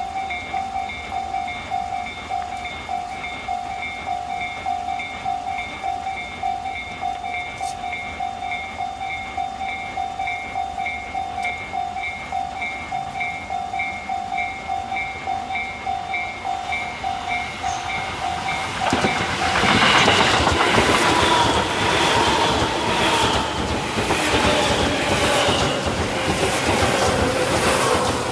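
A Japanese level-crossing warning bell rings in a fast, even, repeating clang. About 19 seconds in, an electric train runs through the crossing, much louder, with rapid wheel clacks over the rail joints and a motor whine that falls slowly in pitch.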